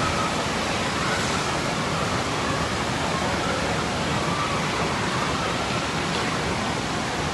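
Steady rushing of water flowing along an indoor water-ride channel, an even wash of noise with no breaks.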